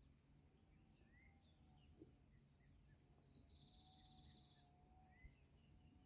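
Faint natural ambience of scattered short bird chirps. About midway a high buzzing trill runs for about two seconds.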